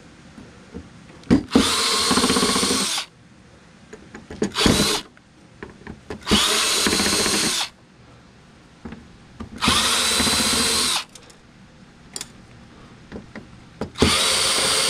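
Cordless drill-driver running in five short bursts of about a second each, with pauses between, as it unscrews the circuit board and metal mounting plate of a flat-screen TV.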